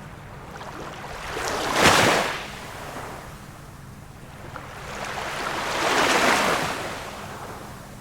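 Small waves of a calm sea washing in, two of them: one swells to a sharp peak about two seconds in, a broader one builds and fades around six seconds, over a low steady hiss.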